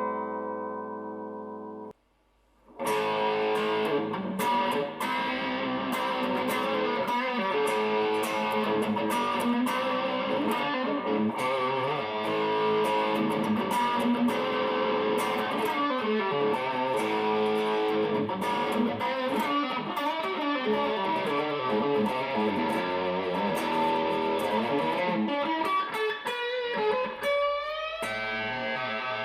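Tokai Love Rock Les Paul-style electric guitar: a held chord rings and cuts off about two seconds in, then after a short pause a busy run of fast notes, with string bends near the end.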